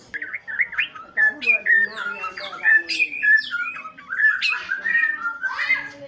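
White-rumped shama singing loudly: a rapid, unbroken run of varied whistled phrases that slide up and down in pitch, stopping just before the end.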